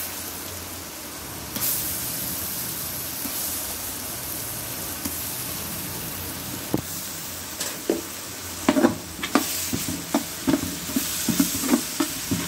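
Ginger-garlic paste sizzling in hot ghee with frying onions in a large metal pot, the sizzle growing louder about a second and a half in. From about halfway on, a metal ladle scrapes and knocks against the pot again and again as the paste is stirred in.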